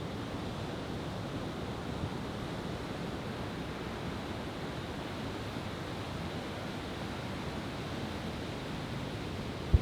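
Steady wash of surf, with a single deep boom from a large firework shell just before the end.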